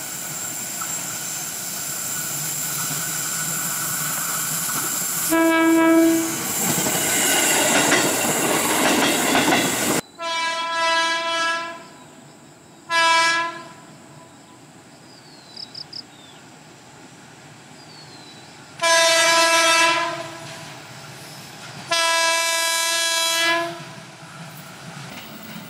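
KRL commuter electric trains sounding their horn, a single steady pitch. One blast comes over the rumble of a passing train. After a cut come four more blasts, short and long, from a train standing or moving more quietly.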